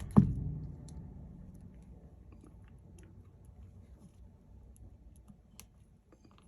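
A single sharp knock just after the start, the loudest sound, with a low fading tail, followed by faint scattered small clicks and taps of small phone parts being handled during reassembly.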